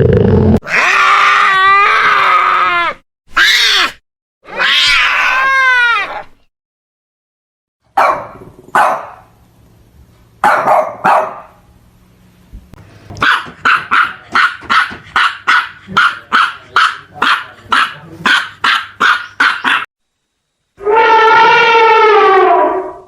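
A string of separate animal calls: drawn-out pitched calls that fall in pitch, a few short bark-like calls, then a fast run of short yelping calls about two a second, and one last long falling call near the end.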